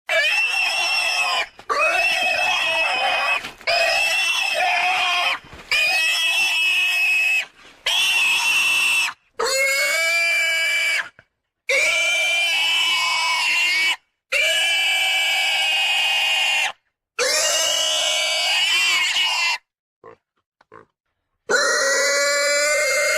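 Gloucestershire Old Spot pig calling over and over: about ten long, high calls of one to two seconds each, separated by short silences.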